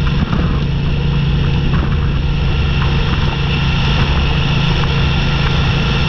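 Motorcycle engine running at a steady cruising speed during a ride: a constant low engine drone with an even hiss of road and wind noise over it.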